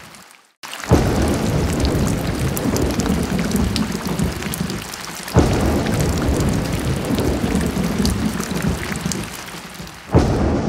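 Heavy rain pouring with thunder rumbling. The sound drops out briefly near the start, then a loud rumble comes in suddenly about a second in, another about halfway through, and another near the end.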